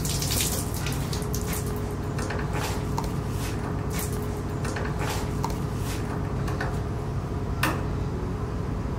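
Water dripping and spattering off a soaked electrical switch, with a sharp click just before the end as the switch is turned and the lamp comes on, showing the wet switch still works. A steady low hum of ship machinery runs underneath.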